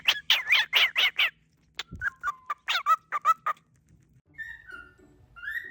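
A cockatiel calling: a quick run of about eight sharp chirps, then a few more scattered calls, and near the end a whistled, wavering tune.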